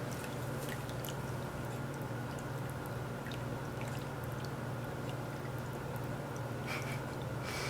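PetAcc cat water fountain running: a steady low pump hum under the soft trickle of water from its flower top, with a few faint drips.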